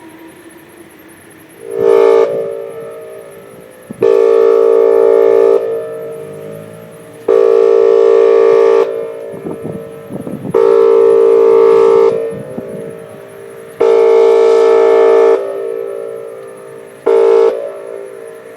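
A Whelen WPS 2810 electronic outdoor warning siren sounds a pulsed steady tone in six loud blasts about three seconds apart. Most blasts last about a second and a half, and the first and last are shorter. Each blast cuts off sharply and then dies away slowly before the next one.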